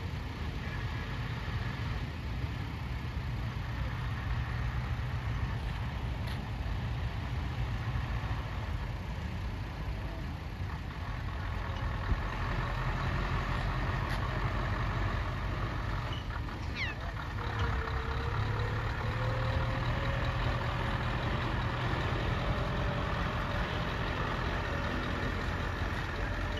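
Scania articulated lorry's diesel engine running with a steady low rumble as the truck pulls slowly across grass. A faint thin tone rises slowly through the second half.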